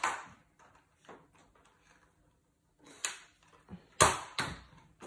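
Plastic clicks and knocks of a Nerf Dino Squad Triceratops blaster being handled while it is loaded, with sharp clicks about three and four seconds in among lighter tapping.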